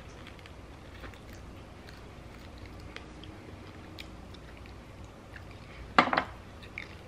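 Close-up chewing and nibbling of chicken wing meat off the bone, with small wet clicks. About six seconds in, a sharp clatter, the loudest sound, as a bone is dropped onto the metal baking sheet.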